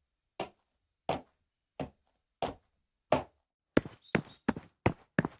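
Footsteps on a hard surface: five evenly spaced walking steps, then about three and a half seconds in a quicker run of sharper steps, each with a doubled heel-and-toe strike.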